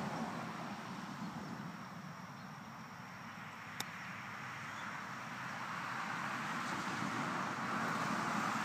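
A golf club strikes a ball off the grass once, a single sharp click about four seconds in, over steady outdoor background noise.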